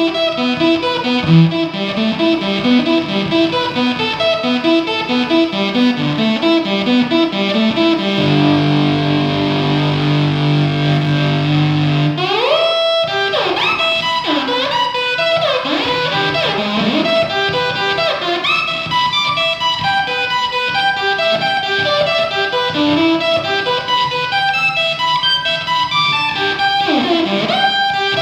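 Electric guitar played through a fuzz: a run of quick picked notes, then a held chord about eight seconds in, then from about twelve seconds in notes that swoop up and down in pitch.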